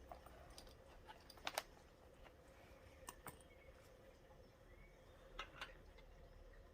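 Quiet handling of a leather notebook and its small brass accessories: a few soft clicks and taps, several in close pairs, over near silence.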